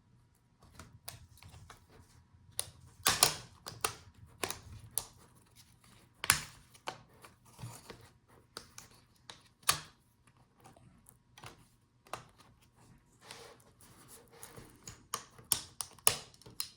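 Irregular sharp clicks and snaps as the hinge cover on a Dell Inspiron 16 5625 laptop's display assembly is pried loose and lifted off, with small taps on the case. The loudest clicks fall about three, six and ten seconds in, with a quick cluster near the end.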